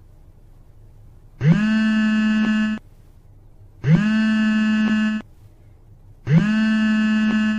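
A loud electronic buzzer-like tone sounds three times, each lasting about a second and a half. Each starts with a quick upward slide in pitch, then holds steady and cuts off.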